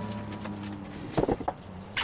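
Background music dies away at the start, then a few light knocks of books and binders being handled and set onto a bookshelf, a pair about a second in and another near the end.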